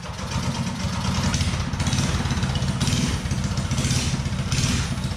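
179cc LCT single-cylinder snowblower engine on a Coleman CC100X mini bike running steadily just after a pull start, with no head gasket fitted. Its sound rises and falls slightly about once a second.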